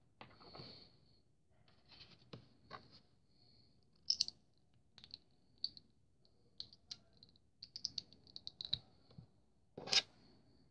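Hands handling small plastic model parts: irregular light clicks and scratchy rustles, with one sharper click near the end.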